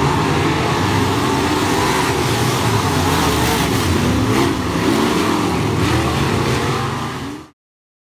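Dirt-track race cars running around the oval in a pack, engines at speed with the pitch rising and falling as cars pass. The sound cuts off suddenly near the end.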